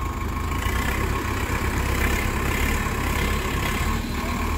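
Preet 6049 tractor's diesel engine running steadily under load as the tractor works forward through deep mud.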